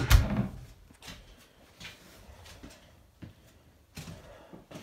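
A wooden closet door thumping shut, followed by a few faint knocks.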